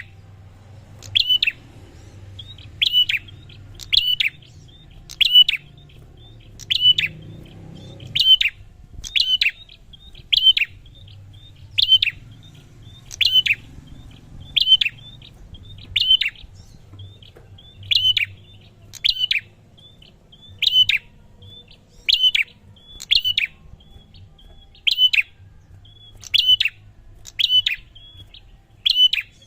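Prinia (prenjak) calling: a sharp, high chirp that drops in pitch, repeated at an even pace of about one every second and a quarter, with faint short notes in between.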